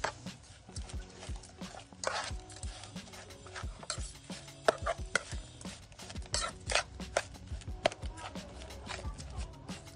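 A metal spoon clinking and scraping against a metal pot in irregular knocks while raw pork pieces are stirred together with spice paste.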